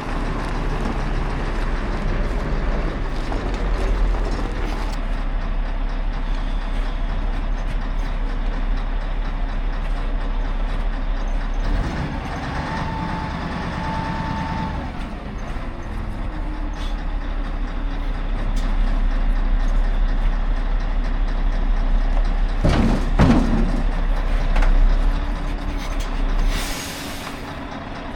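Heavy diesel machinery running with a steady low drone. A few sharp metallic knocks come about two-thirds of the way through, and a short burst of air hiss near the end, like an air brake releasing, after which the engine drone drops away.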